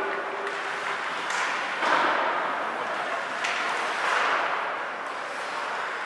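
Ice hockey game play on the rink: skates and sticks on the ice over a steady arena hum, with two sharp cracks, one about a second in and one about halfway through, each followed by a brief hissing scrape.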